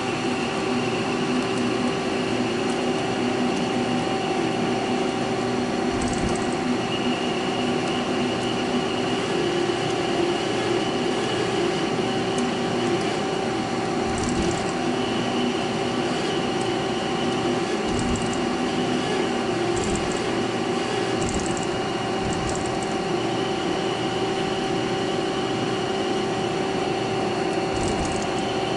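Haas SL-20 CNC lathe running a G71 stock-removal roughing cycle, turning aluminum bar stock: a steady machine hum with several steady tones, broken by a few short knocks.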